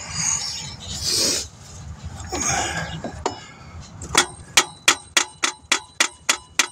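A tool tapping lightly on a new alternator's metal housing to drive it into its mounting bracket: a quick run of about ten sharp, ringing metal taps, roughly four a second, starting about four seconds in. Before the taps there is some soft rustling and scraping.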